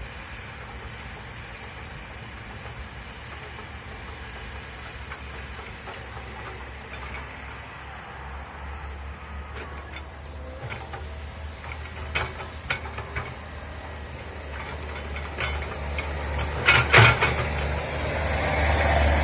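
Komatsu excavator's engine running steadily and growing louder, with a series of sharp knocks and cracks in the second half, the loudest about seventeen seconds in.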